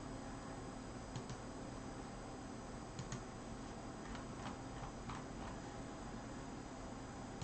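A few faint, scattered clicks and taps over a steady background hiss: one about a second in, a pair around three seconds, and a small cluster between four and five and a half seconds.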